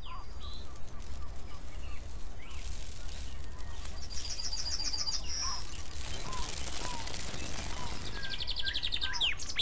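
Birds chirping, with a rapid high trill about four seconds in and another near the end, over a steady low rumble.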